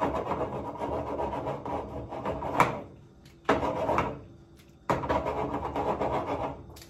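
Spatula stirring and scraping penne coated in beet purée around a small frying pan, in three rubbing, scraping bursts, with one sharp knock about two and a half seconds in.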